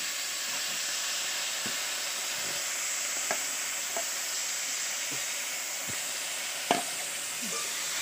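Raw meat chunks frying in hot oil in a steel wok, a steady sizzle, as a metal spoon pushes them in and stirs. A few sharp clinks of the spoon against the pan, the loudest near the end.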